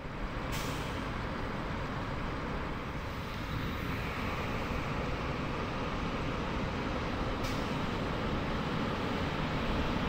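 Fire engine running steadily.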